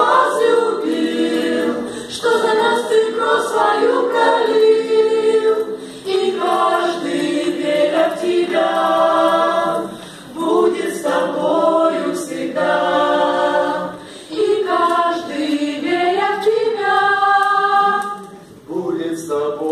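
Small mixed choir of women's and men's voices singing a cappella in harmony, in phrases broken by short breaths about every four seconds.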